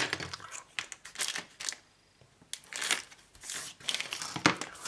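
Clear plastic bag around a model kit sprue crinkling as it is handled and slit open with a hobby knife, in short irregular crackles with a brief lull about two seconds in.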